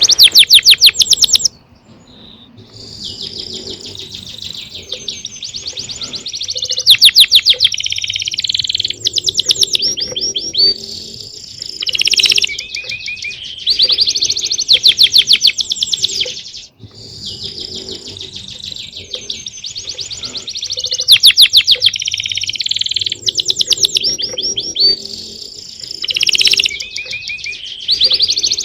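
Songbirds chirping and singing, with fast trills of rapidly repeated notes overlapping one another. The birdsong drops away briefly about two seconds in and again about halfway through.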